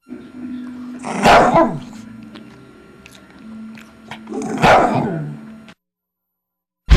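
A dog barks twice, about three seconds apart, over a low steady hum.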